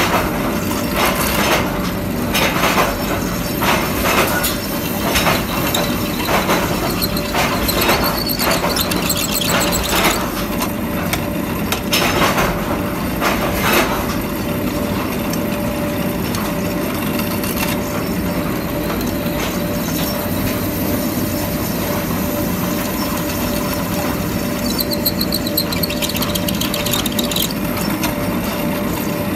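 Nut-tapping machine running, its vertical spindle driving a tap to cut threads into steel hex nuts held in a jig: a steady hum with a constant tone. Sharp knocks repeat roughly once a second or faster through the first half and stop about halfway.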